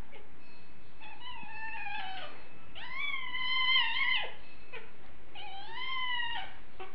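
Cat meowing in three drawn-out, wavering cries while an adult cat and a kitten wrestle. The cries come about a second in, around three seconds in (the loudest), and again towards the end.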